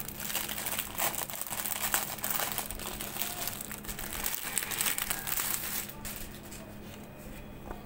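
Plastic packaging crinkling and rustling as a parcel is opened by hand and the folded garment is pulled out. The crinkling dies down about six seconds in.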